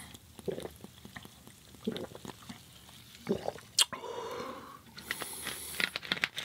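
Close-miked wet chewing and mouth sounds of a person eating, with scattered small clicks and a sharper click about four seconds in.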